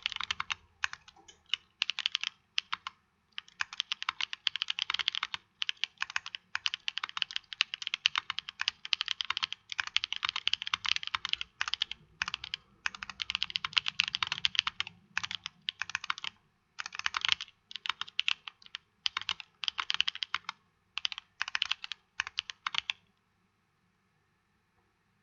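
Typing on a mechanical keyboard with lubed Holy Panda tactile switches on a carbon fiber plate and GMK keycaps: quick runs of key presses broken by short pauses, stopping about two seconds before the end.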